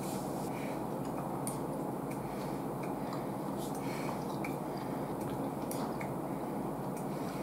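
Small clicks of a metal spoon against a bowl and soft wet chewing sounds of a person eating, over a steady background noise.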